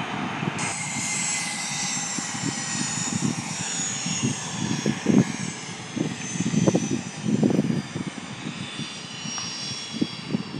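Aircraft turbine engines whining at a distance, the high whine drifting slowly down in pitch. Irregular gusts of wind buffet the microphone.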